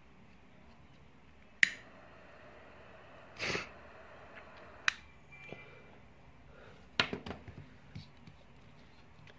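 Small clicks and taps of tools and parts being handled at a workbench during a wire-stripping and soldering repair: a single sharp click, a short rustle, another click, then a quick run of several clicks near the end.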